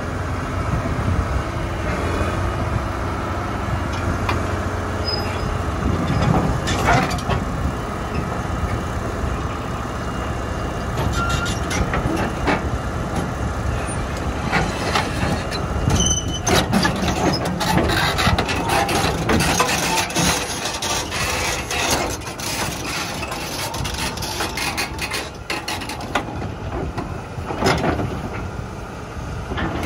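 Liebherr 932 crawler excavator's diesel engine running under load as it tracks up onto a lowboy trailer, with repeated clanks and knocks of its steel tracks on the trailer deck, thickest in the second half.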